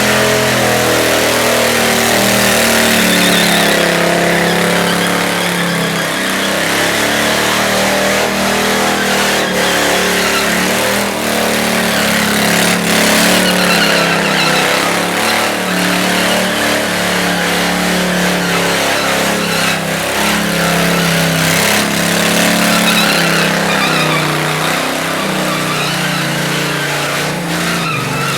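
Small lawnmower engine in a motorcycle frame running hard under a rider, its revs rising and falling over and over.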